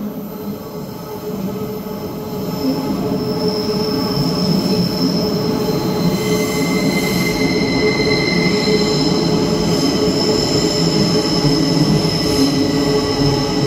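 Bucharest metro train arriving in an underground station: a rumble that grows louder over the first few seconds, then high, steady squealing tones over the rumble as the train runs along the platform.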